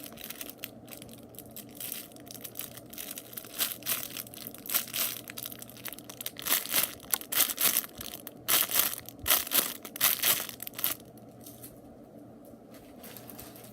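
Plastic wrapping crinkling and crackling as it is handled and squeezed, in irregular bursts that are busiest in the middle and die down near the end.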